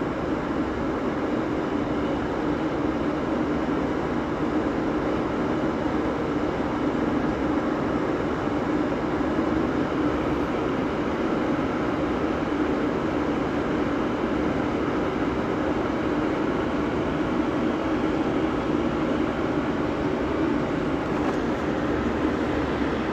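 Steady, unchanging drone of a boat's motor running.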